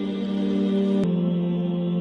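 Background music: slow, sustained new-age tones, the held chord shifting down to a lower note about a second in.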